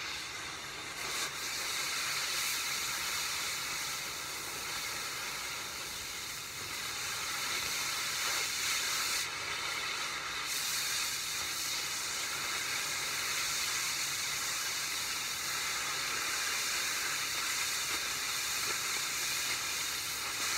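Oxy-fuel cutting torch hissing steadily as its flame and oxygen jet cut a hole through a steel forklift fork.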